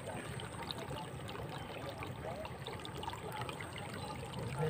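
Shallow water trickling at the muddy edge of a flooded rice paddy, as a steady noisy wash, with a few faint short chirps.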